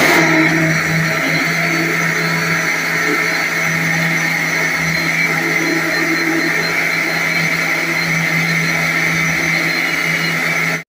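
Electric mixer grinder with a steel jar running steadily with a constant motor hum, then cutting off abruptly at the end.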